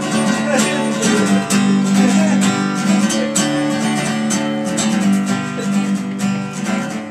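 Acoustic guitar strummed in a steady rhythm of chords: the instrumental opening of a song, before the vocals come in.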